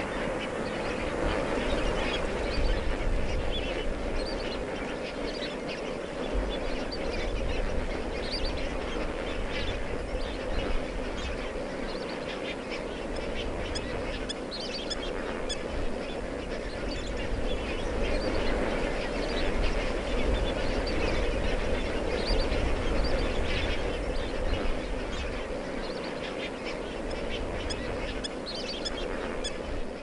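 A huge flock of lesser flamingos calling all at once, a dense, unbroken din of overlapping honks and chatter, with a low rumble underneath.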